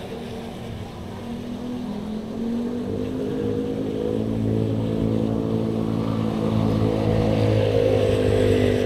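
A motor engine running and drawing closer, growing steadily louder and loudest near the end.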